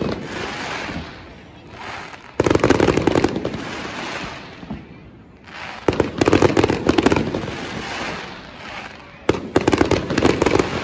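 Aerial fireworks shells bursting, three times about three and a half seconds apart, each burst followed by a second or so of dense crackling that fades out.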